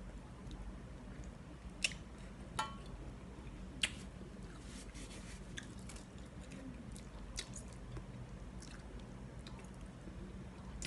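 A person eating braised chicken feet and tom yum instant noodles by hand: close-up chewing and biting with wet mouth clicks and smacks. The three sharpest clicks come about 2, 2.5 and 4 seconds in.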